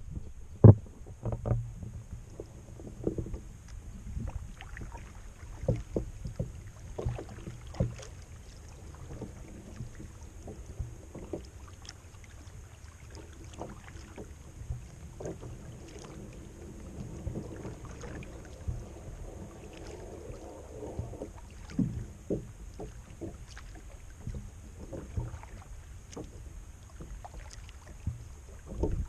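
Kayak being paddled: paddle strokes dipping and splashing, with irregular knocks, the loudest about a second in, over a steady low rumble.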